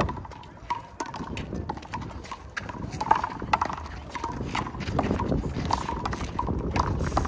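Handball rally: a rubber ball slapping off players' hands and the wall in quick irregular knocks, with short squeaks in between.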